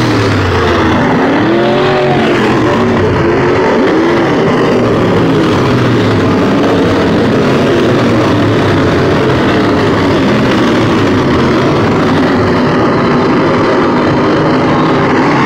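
A pack of dirt-track race cars racing around the oval, loud throughout. In the first few seconds the engines rise and fall in pitch as cars rev through the turn and pass.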